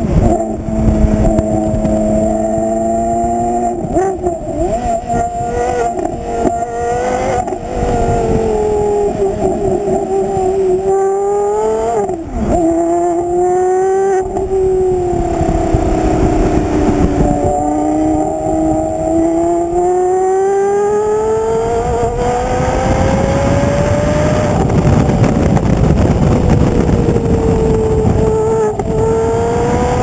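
Porsche Carrera GT's V10 engine heard right at the exhaust outlet while driven hard, its pitch climbing and dropping repeatedly with sudden jumps at the gear changes. Wind and road rush grow louder in the last several seconds.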